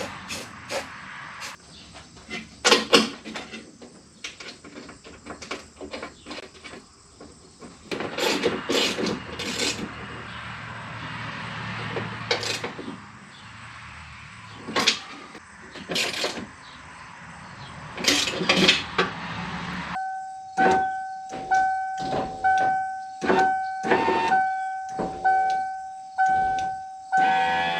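Irregular clicks, knocks and clatter of hand work on a truck door for about twenty seconds. Then a steady electronic warning tone starts, repeating in pulses just under a second apart, with sharp clicks along it.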